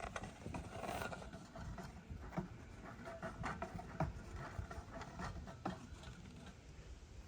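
Irregular soft thuds and rustling, a few short knocks spaced unevenly, over a low rumble.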